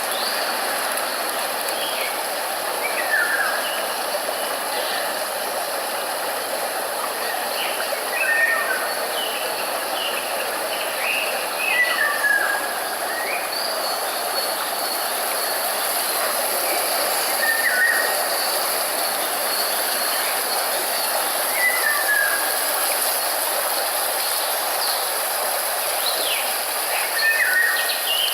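A steady rush of running water under a high, constant hiss, with birds chirping: short, downward-sliding calls every one to three seconds.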